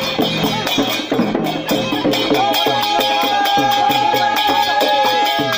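Traditional folk dance music with a fast, steady percussion beat. About two seconds in, a long high note comes in and is held.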